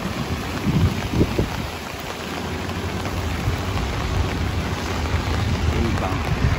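Steady rain falling: an even hiss with a low rumble beneath it.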